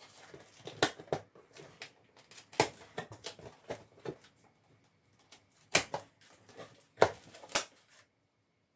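Packing tape being peeled and ripped off a cardboard box, and the cardboard flaps pulled open: a string of short, sharp rips and cardboard scrapes with a few louder ones.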